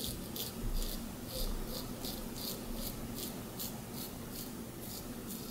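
Double-edge safety razor scraping through lathered stubble in short, quick strokes, about three a second. This is the crisp cutting sound of the razor "singing" as it shears the whiskers.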